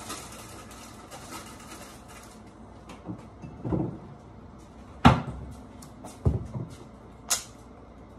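Kitchen wall cabinet being rummaged: things moved on its shelf and its door knocking, heard as a few separate sharp knocks, the loudest about five seconds in.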